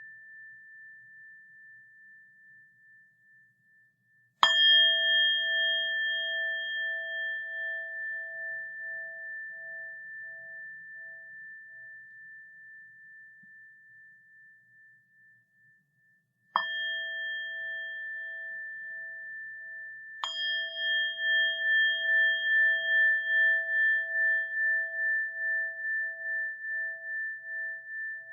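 A small bell struck three times, each strike ringing on in a long, slowly fading tone that pulses gently as it dies away. The first strike comes about four seconds in, the next two close together about twelve and sixteen seconds later; at the start the ring of an earlier strike is fading out.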